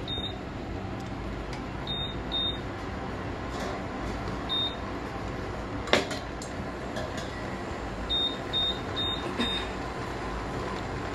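Induction cooktop's touch controls beeping as they are pressed: short high beeps, one right at the start, a pair about two seconds in, one near five seconds, and a quick run of several between eight and ten seconds. About six seconds in, a kadai is set down on the glass top with a single sharp clank, the loudest sound.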